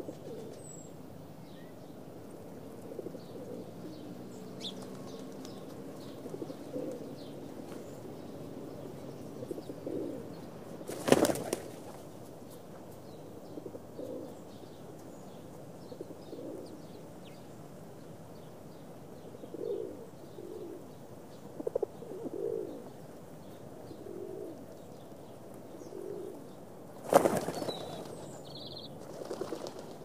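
Pigeons cooing low and repeatedly, with faint high bird chirps. Two loud, brief flurries of wing-flapping come about a third of the way in and near the end.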